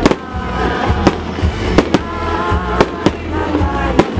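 Fireworks display: aerial shells bursting in about seven sharp bangs, the loudest right at the start and the rest at irregular intervals. Music plays underneath.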